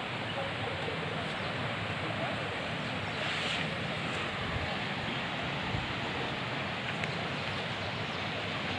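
A small forest river flowing, a steady rushing noise with no distinct events.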